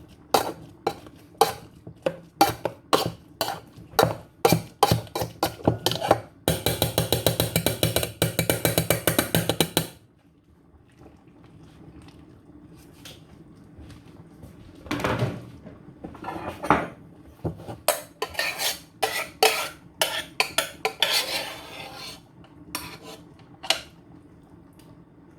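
A utensil knocking and scraping in a cooking pot as pumpkin is crushed into the soup. It gives sharp knocks about twice a second, then a quick even run of strokes for a few seconds, then slower, quieter clinks and scrapes.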